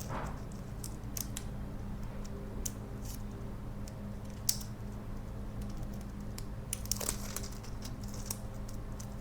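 Light scattered clicks and taps of a new phone charging jack and small tools being handled on a repair bench, over a steady low hum.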